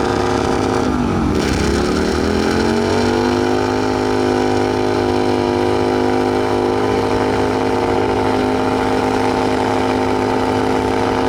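Motorcycle engine revved: its pitch dips about a second in, climbs over the next two seconds, then is held steady at raised revs.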